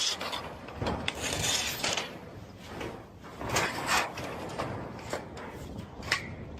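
Hand work on roofing materials: long scrapes and slides, with a few sharp knocks in between.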